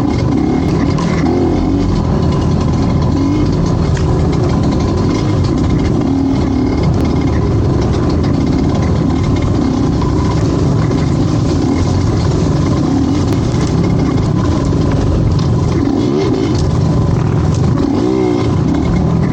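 A vehicle engine running loud and continuous under varying throttle, its pitch wavering up and down, with a dense rushing noise over it.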